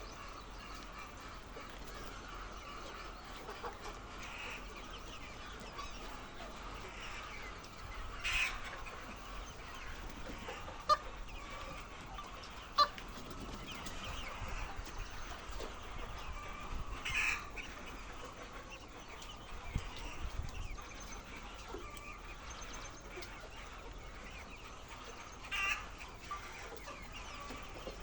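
A flock of egg-laying hens clucking together in a steady murmur, with a few louder calls standing out three times. Two sharp clicks come in the middle.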